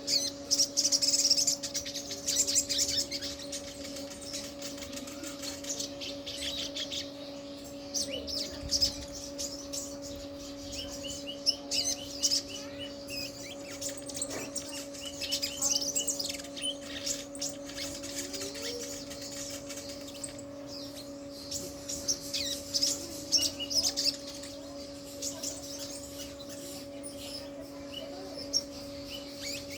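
Brown-throated sunbird (sogok ontong) singing: sharp high chirps and quick runs of repeated notes, with a steady low hum underneath.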